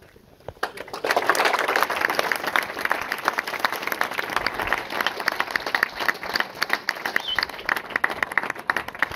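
Audience applauding: many hands clapping break out about a second in and carry on steadily.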